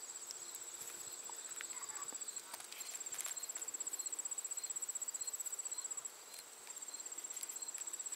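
High-pitched insect trill, steady and finely pulsed, with fainter evenly spaced chirps from other insects beneath it. The trill breaks off briefly about six seconds in and then resumes.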